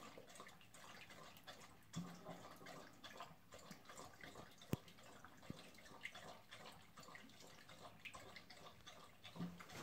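A dog lapping water from a bowl: faint, irregular wet laps, with one sharp click about halfway through.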